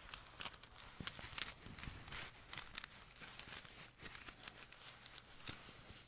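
Black agate rune stones handled: irregular small clicks and taps of stone, with light rustling.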